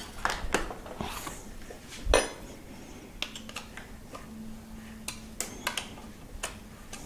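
Metal hand tool clicking and scraping against a motor-mounting screw on a Yamaha PW-X e-bike motor as the screw is turned in by hand, giving a series of irregular metallic clicks with one louder knock about two seconds in. The screw is running stiffly and needs more force to turn.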